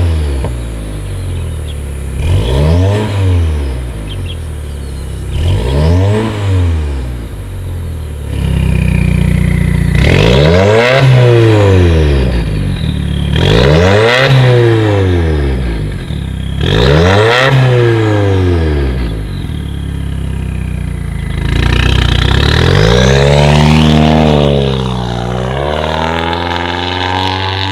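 Subaru Levorg 2.0T's turbocharged flat-four engine through a catless downpipe and valved performance exhaust, revved again and again. The first three short revs are quieter, with the exhaust valves closed. From about eight seconds in the valves are open: a louder, deeper running note with three bigger revs over it, then a longer run of rising and falling revs near the end.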